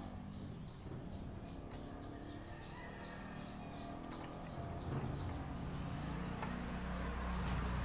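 High, short chirps repeating steadily about three times a second, each sweeping downward. A low rumble swells from about halfway.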